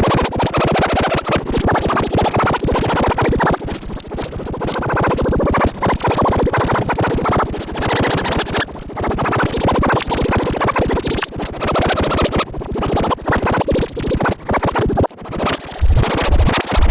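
Harsh electronic emergency alert alarm, a loud buzzing tone chopped into very rapid pulses, its pitch wavering up and down. It cuts off abruptly at the end.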